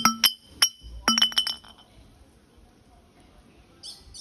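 An empty glass soy-milk bottle knocking and clinking on concrete as a macaque handles it: a quick run of about eight sharp knocks with a glassy ring in the first two seconds, then quiet.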